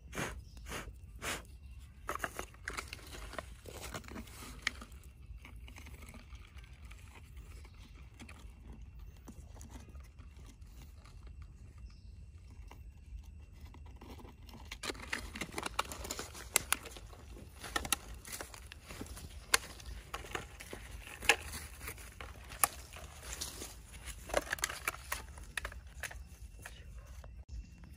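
Hands digging and crumbling dry soil and leaf litter: scattered crunches and rustles, then from about halfway busier crinkling and sharp clicks as a small plastic bottle is handled.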